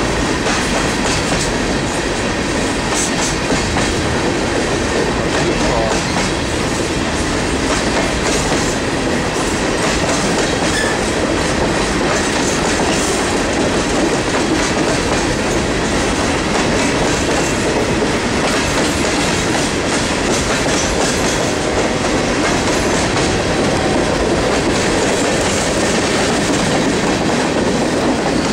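Empty CSX coal train's open-top hopper cars rolling past, a steady rumble of steel wheels on the rails.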